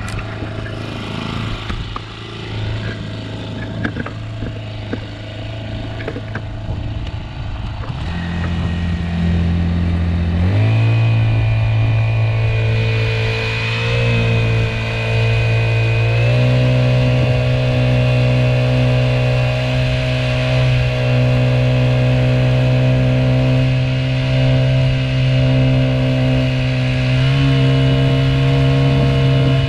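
Honda GX50 50cc air-cooled four-stroke outboard motor running under way, its engine speed stepping up a few times, with a clear jump about ten seconds in after which it runs louder and steadier.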